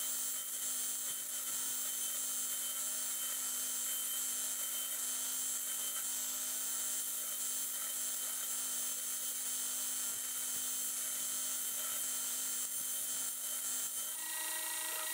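Belt grinder running with a 120-grit ceramic belt grinding the edge of a hardened steel hatchet head against the contact wheel: a steady high hiss over the machine's steady hum. This is the final grinding after heat treatment. The tone shifts near the end.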